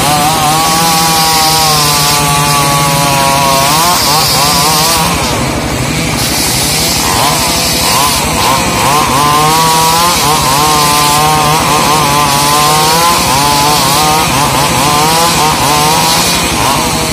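Stihl MS 381 single-cylinder two-stroke chainsaw running at full throttle while ripping trembesi wood lengthwise. Its engine note sags and recovers several times as the chain bites into the cut.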